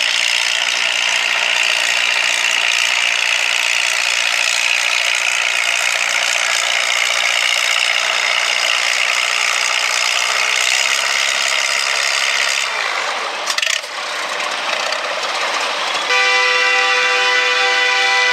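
Antique farm tractor engine running hard under full load while pulling a sled, a loud, dense, steady sound. Past the middle it fades and falls away, briefly dropping out as the pull ends. Near the end another antique tractor engine runs with a steady, clearly pitched note.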